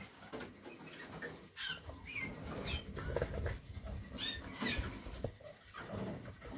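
Harzer Roller canaries giving short, high chirping calls, about half a dozen scattered through, over faint rustling and a few light knocks.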